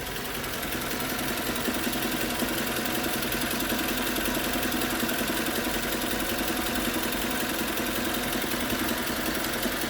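Suzuki Grand Vitara's 2.4-litre J24B four-cylinder engine idling hot, with a steady, rapid knock coming from low in the engine near the oil pan and the gearbox bell housing. The knock shows up only once the oil is fully warmed and thin; with the crankshaft, connecting rods and cylinders checked, the owner wonders whether it could be the balance shafts.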